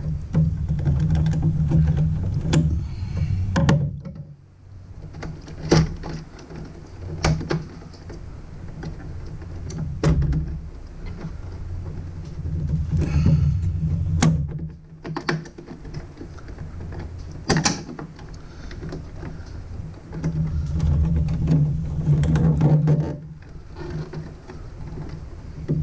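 A screwdriver working the wire terminals inside a plastic electrical enclosure: stretches of mechanical turning and handling noise, broken by a number of sharp separate clicks and knocks of the tool and wires against the box.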